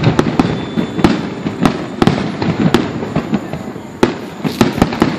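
Aerial fireworks shells bursting in quick, irregular succession: a steady run of bangs and crackles, with the heaviest booms about one, two and four seconds in.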